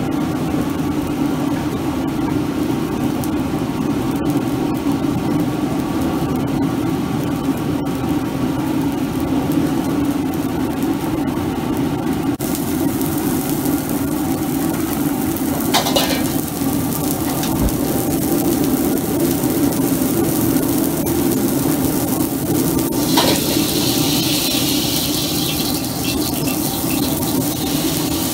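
Commercial gas wok range and kitchen equipment running with a steady, loud rush while stir-fry sizzles and steams in a large wok. Hissing grows from about halfway through, with two sharp knocks, likely a ladle on the wok, and a louder burst of sizzle a few seconds before the end.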